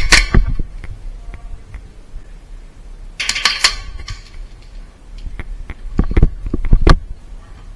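Airsoft play: sharp clicks and knocks, a cluster at the start and another around six to seven seconds in, with a short hissing burst about three seconds in.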